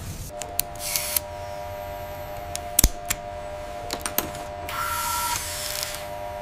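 Robotic machinery sound effects: a steady mechanical hum of several tones with scattered sharp clicks, the loudest a little before 3 s in, and two short hissing whirs about a second in and near 5 s.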